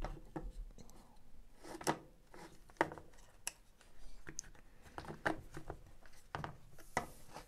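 Scattered light clicks and rustles as a small brushed DC motor with its wire leads is handled and fitted into a plastic tool housing: plastic and metal parts tapping and clicking against each other.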